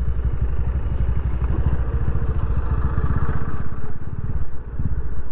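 Yamaha FZ25 single-cylinder motorcycle engine running steadily under way, heard from the bike, with a brief dip in level about four and a half seconds in.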